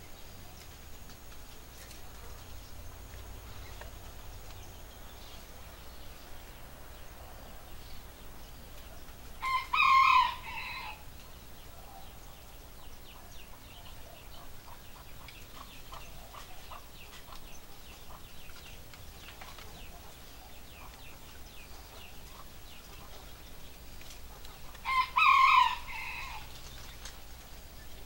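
A rooster crows twice, about fifteen seconds apart, each crow lasting a little over a second. Faint small bird chirps come between the crows.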